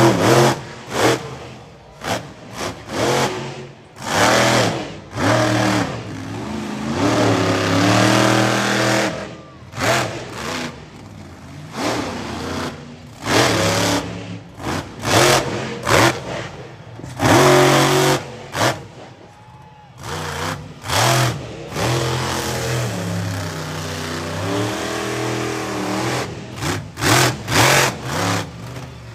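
Monster truck engine revving hard: quick bursts of sharp throttle blips alternate with longer stretches of high revs that rise and fall in pitch.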